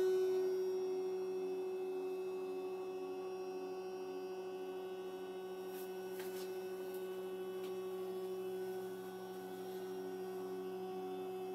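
Ambient drone from the film's soundtrack: a steady hum-like tone over a lower tone that pulses slowly, with a few faint high clicks about six to eight seconds in.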